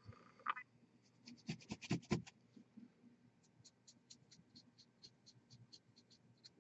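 Faint scratching and light clicking from a small paintbrush working paint on a miniature and palette: a cluster of clicks about a second and a half in, then a run of quick light ticks, about five a second.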